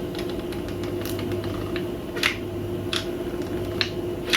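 Tailoring (sewing-machine) motor running slowly through the repaired foot pedal, giving a steady electrical hum, with sharp light clicks about once a second.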